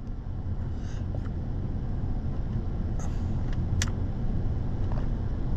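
Pickup truck engine idling steadily, with two short clicks of the cab switches a little past halfway as the lights are switched on.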